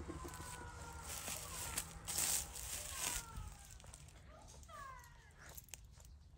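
Repeated short, falling whining calls, each sliding down in pitch, with a louder rustling crunch of dry leaves about two to three seconds in.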